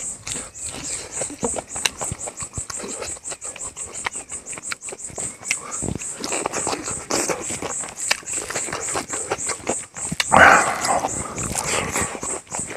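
Close-up eating sounds: wet smacking and chewing of a mouthful of rice and pork, with many small clicks. About ten seconds in there is one short, louder voice-like sound. A high chirp pulses about four times a second behind it throughout.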